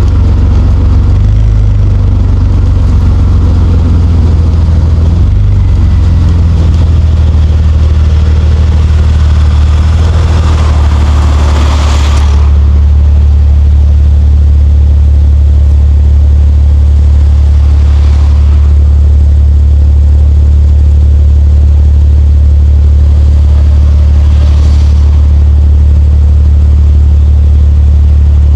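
Nissan Skyline R34 GT-T's turbocharged straight-six running under way, a deep drone that shifts in pitch for the first few seconds and then holds steady. A hiss builds around ten seconds in and cuts off suddenly about two seconds later, with two fainter swells later on.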